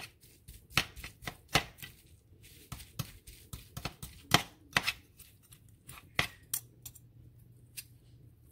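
Two metal forks shredding boiled chicken breast in a bowl: irregular clicks and scrapes of the tines against the bowl, the loudest clink a little past halfway. A faint low hum comes in over the last couple of seconds.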